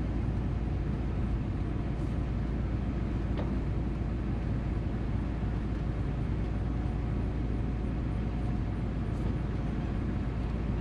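Steady low engine and road rumble of a classic 1957 Chevy driving slowly, heard from inside the car, with a faint click a few seconds in.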